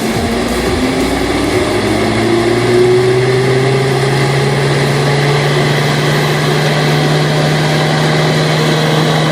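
Tractor running with a PSPT-3000 'Vikhr' tractor-mounted garden vacuum: a steady engine hum, with a tone that rises over the first three seconds and then holds steady as the machine comes up to speed.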